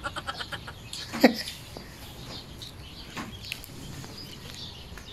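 Chickens clucking in scattered short calls, the loudest about a second in, with faint chirping in the background.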